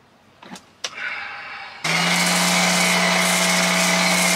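Two short clicks as a foam cannon bottle is fitted onto a pressure washer wand. About two seconds in, an electric pressure washer starts running steadily, with a motor hum and the hiss of foam spraying from the cannon.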